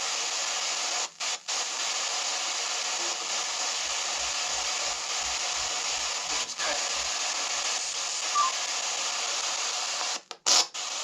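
S-Box ghost box sweeping through radio stations: a steady wash of radio static, broken by brief cut-outs about a second in and a short louder burst near the end.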